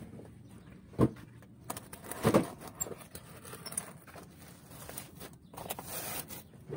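Hand tools clicking against the clutch slave cylinder pushrod and linkage under a Mitsubishi Canter: two sharp metallic clicks about a second and two and a half seconds in, with small scattered ticks between.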